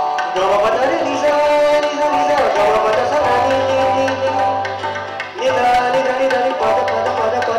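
Live Indian-style band music: tabla beating under a Yamaha keyboard and acoustic guitar, with a melody line that slides between notes and a held low note in the middle.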